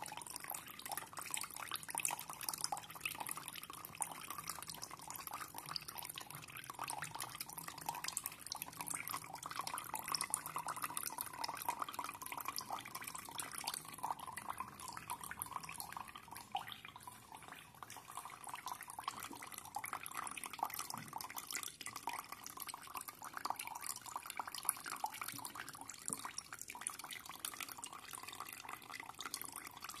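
A toy washing machine draining: a thin, steady stream of water trickling from its drain hose and splashing into a plastic jug.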